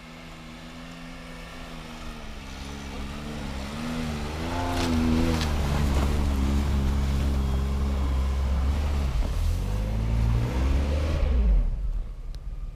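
Car engine revving hard under load as the car tries to climb a steep snow-covered slope. The revs rise and fall unsteadily, grow louder over the first few seconds, then drop off near the end as the climb fails.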